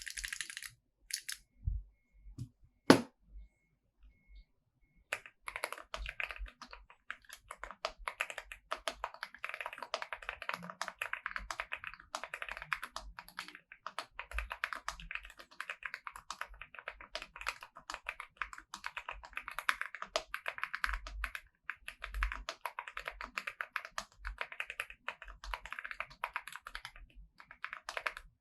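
Rapid, continuous typing on a Zuoya GMK67 custom keyboard with Holy Tom V2 switches lubed with Krytox 205g0, a PC plate, foam and tape mods, and double-shot ABS keycaps, giving a marbly sound. The typing starts about five seconds in, after a few stray noises including one sharp click about three seconds in.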